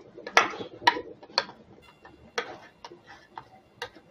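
Steel spoon clinking and tapping against a stainless steel bowl while mashing a boiled tomato: a string of irregular sharp clicks, roughly two a second, with a softer squelch about half a second in.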